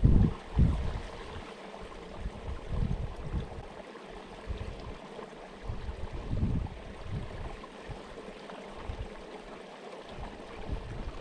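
Wind gusting over the microphone: irregular low rumbling buffets over a steady rushing hiss, with the strongest gust right at the start.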